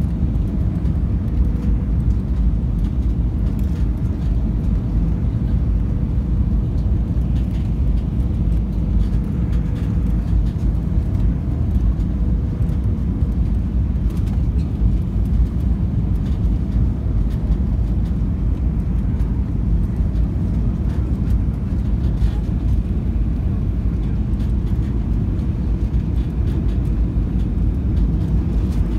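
Steady low rumble of an airliner on the ground after landing, with a faint steady tone through the first half.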